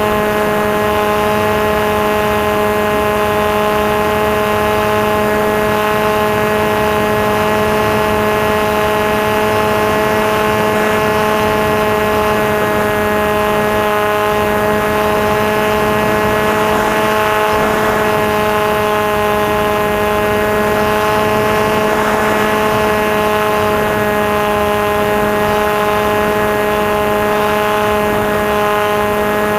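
Electric motor and propeller of a Maxi Swift FPV model plane running at a steady throttle, picked up by the onboard microphone. It makes a loud, even drone that holds one pitch throughout.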